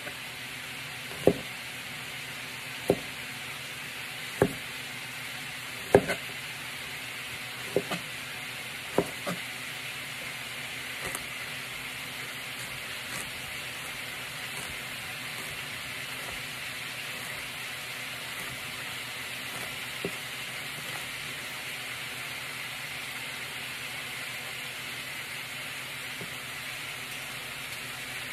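Beef searing in a pan over high heat, a steady sizzle throughout. A chef's knife chops through fresh ginger on a cutting board, with sharp knocks about every second and a half during the first ten seconds, then only occasional ones.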